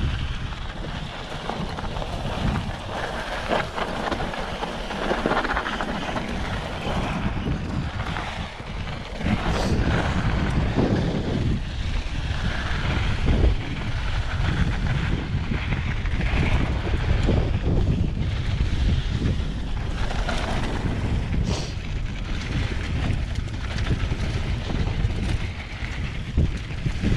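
Mountain bike riding fast downhill on a dry dirt and rock trail: steady wind buffeting the microphone over the rolling of knobby tyres on dirt and gravel, with a few sharp knocks and rattles as the bike hits rocks.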